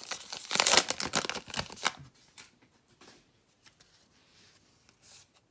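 Wrapper of a Topps Gypsy Queen baseball card pack being torn open and crinkled for about two seconds. After that come faint soft rustles and clicks as the stack of cards is slid out and handled.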